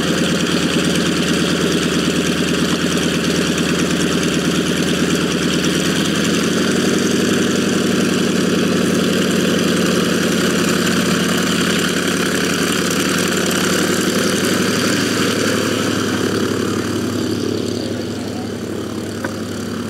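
Light tow plane's piston engine and propeller idling steadily. The engine note rises slightly about six seconds in and grows quieter near the end.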